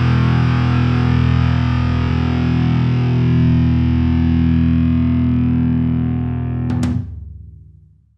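Outro music: a held, distorted electric guitar chord that rings on steadily, then two quick sharp hits about seven seconds in before it fades away.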